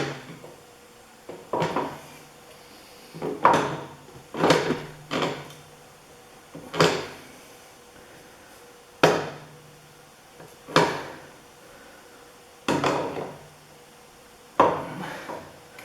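Hand lever-action grease gun being pumped, a sharp clack with each stroke, about nine strokes one to two seconds apart. It is forcing grease into a grease fitting that has just been tightened, before grease shows at the joint.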